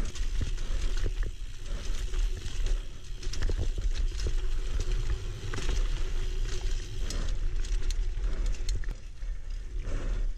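Single-speed mountain bike ridden along a dirt singletrack trail: tyre noise on dirt with the bike rattling and knocking over bumps throughout, under a constant wind rumble on the microphone.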